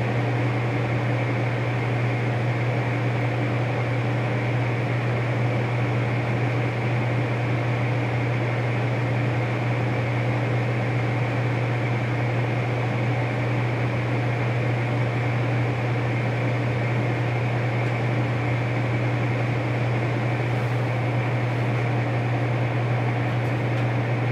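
Tempstar gas furnace running steadily with its burners lit just after ignition, a constant machine hum.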